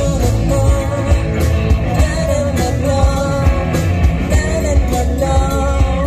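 Live rock band playing a pop song: a woman singing a melody over electric guitars, bass and drums.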